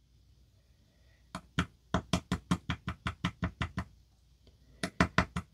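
Rapid, even light knocking, about five or six knocks a second for a couple of seconds, then a few more near the end, as a disassembled Goal S lock is tapped to work its pins out of their chambers.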